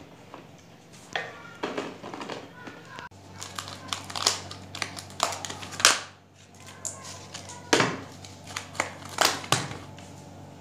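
Boiled black-eyed peas spooned from a pan into a thin plastic tub, then the clear plastic lids pressed down and snapped shut, making a run of sharp crackling clicks and clatters. A faint steady hum runs under them from about three seconds in.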